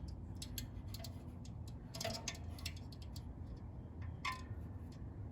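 Multimeter probe tips clicking and scraping against a compressor's terminal pins in an irregular string of light ticks, over a low steady hum.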